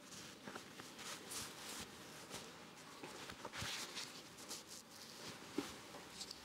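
Faint footsteps of a person walking in sneakers across a wooden floor, with scattered soft scuffs and small clicks and one slightly sharper tap near the end.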